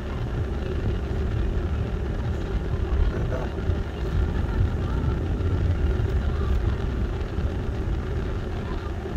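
Road vehicle in motion: a steady low engine and road rumble.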